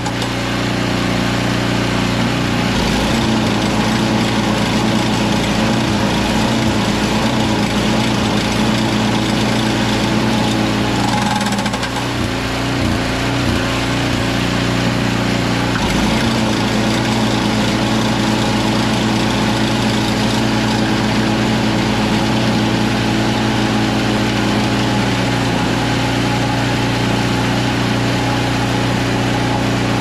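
Craftsman 522 two-stage snowblower with its 5 hp Tecumseh Snow King single-cylinder engine running steadily with the belt cover off, on test for a noise that comes when the auger is released. The tone of the running gear shifts several times as the auger is engaged and released.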